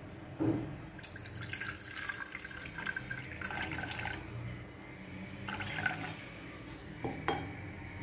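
Water splashing and trickling in several short spurts, with a dull knock about half a second in and a sharp click near the end.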